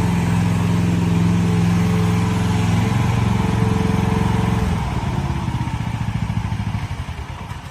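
Vicsec VC13 mini-excavator engine running steadily, then shut off about two-thirds of the way in, its firing pulses slowing and fading as it runs down to a stop.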